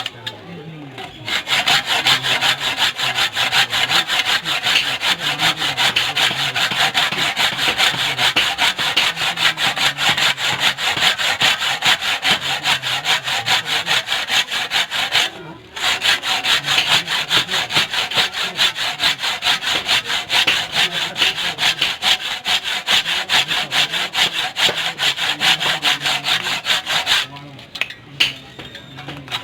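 Hand tool scraped back and forth on a steel knife blank in quick, even strokes, as in filing or hacksawing. The strokes start about a second in, pause briefly halfway through, and stop shortly before the end.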